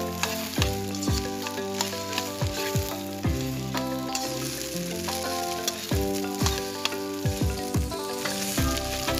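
Sinangag (garlic fried rice) sizzling in a steel wok as a metal spatula stirs and scrapes it against the pan, with many short scraping clicks. Background music with deep bass thumps plays underneath.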